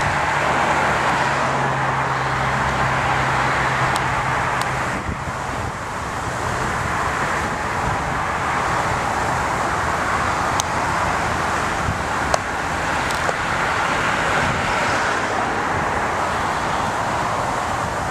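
Freight train of autorack cars rolling past, a steady rumble of wheels on rail heard from a distance, with a few sharp clicks. A low drone fades out in the first few seconds.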